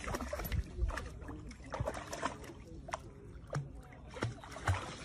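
Lake water splashing and sloshing as a dog wades in and paddles out to swim, in irregular splashes with a few low thumps in the first second.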